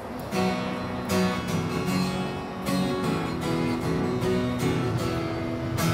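Unamplified acoustic guitar strumming chords at an even, unhurried pace: the instrumental intro of a song, with no singing yet.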